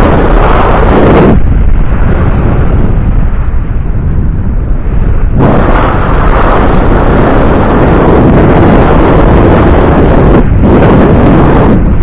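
Heavy wind buffeting the action camera's microphone as the e-bike moves along: a loud, rushing noise with no pitch to it. It grows louder in the first second and again from about five seconds in to near the end.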